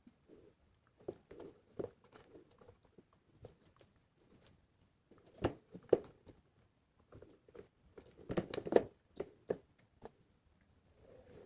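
Irregular small clicks, taps and knocks of hands handling wires and parts of an Arduino project and its plastic enclosure, in two busier clusters about five to six seconds and eight to nine seconds in.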